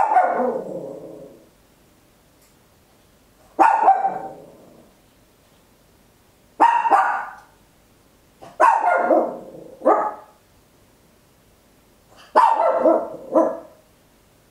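Papillon barking loudly: seven barks, single or in quick pairs, one to three seconds apart. Each bark starts sharply and trails off falling in pitch.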